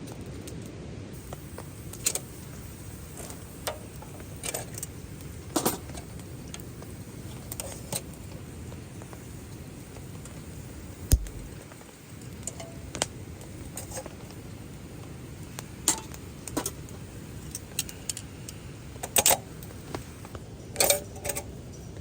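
Steady hiss of rain with irregular sharp clicks and light metallic clinks scattered through it, the loudest about halfway.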